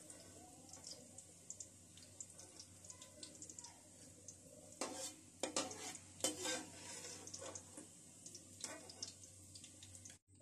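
Oil sizzling faintly in a metal kadai as a slotted spoon scrapes and clinks against the pan, lifting out fried bitter gourd slices. A few sharper clinks come about halfway through and again near the end.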